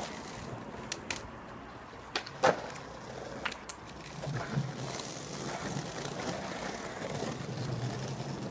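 Skateboard wheels rolling on paved ground, with several sharp clacks of boards striking the ground in the first few seconds; the loudest comes about two and a half seconds in. A heavier rolling rumble follows in the second half.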